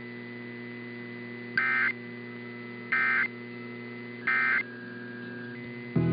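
Three short, identical data-tone bursts a little over a second apart: the Emergency Alert System end-of-message (SAME EOM) signal that closes a NOAA Weather Radio alert, heard over a steady electrical hum.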